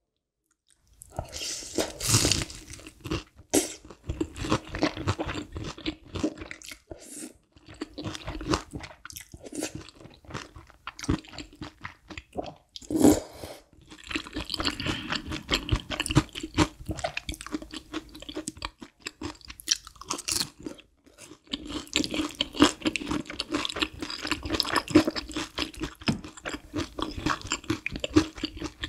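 Close-miked eating sounds, starting about a second in: chewing mouthfuls of thick creamy udon noodles, with frequent crisp crunching and wet mouth clicks.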